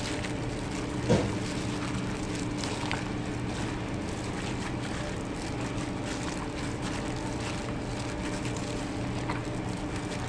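Steady low machine hum, with faint wet squishing and a single light knock about a second in from a gloved hand mixing sliced beef and vegetables in marinade in a stainless steel bowl.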